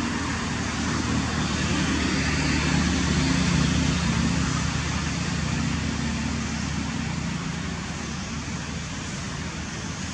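A motor vehicle's engine hum that swells for a few seconds and then slowly fades, as of traffic passing, over a steady outdoor hiss.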